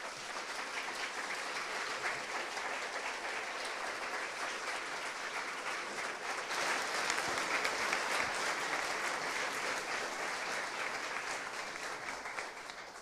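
An audience applauding steadily after a lecture, ending abruptly just before the end.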